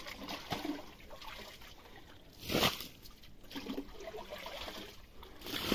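Muddy water sloshing and splashing as a bucket is dipped and filled to bail groundwater out of a hand-dug cistern pit, with two louder splashes, about halfway through and at the very end.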